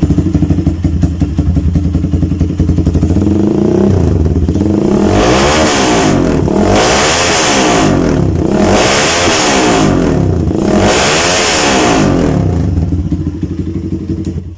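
Motorcycle engine through an aftermarket Termignoni slip-on exhaust, idling, then blipped four times up to about 4,000 RPM, each rev rising and falling, before easing back toward idle. Very loud.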